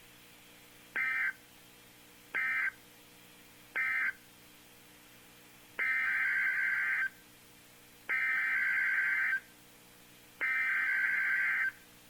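NOAA Weather Radio SAME data bursts, a buzzy two-tone digital warble. First come three short bursts of the end-of-message code that closes an alert, then three longer bursts, each a little over a second, carrying the header of the next alert.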